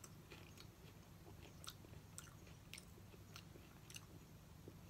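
Faint chewing of a bite of lotus root, with small crisp mouth clicks about every half second over a low steady room hum.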